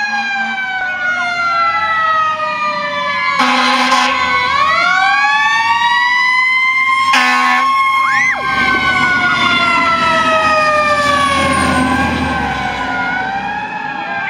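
Fire engine sirens wailing as the trucks pass, several siren tones overlapping and gliding up and down, with two short horn blasts about 3.5 and 7 seconds in. A low engine rumble builds in the second half as a truck goes by close.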